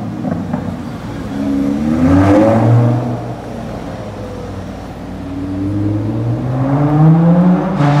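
Supercar engine accelerating, its pitch climbing twice: a short pull about two seconds in, then a longer climb from about five seconds, with a quieter stretch between.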